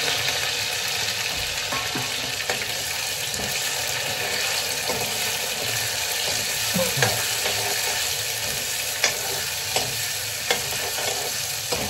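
Chopped onions sizzling steadily in hot oil in a wok, stirred with a steel ladle that scrapes and clicks against the pan now and then.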